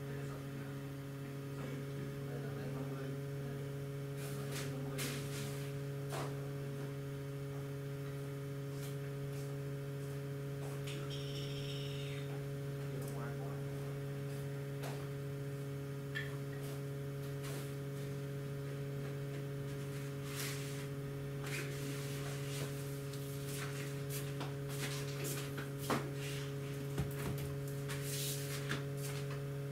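Steady electrical hum with several even tones, with scattered light clicks and taps that come more often near the end.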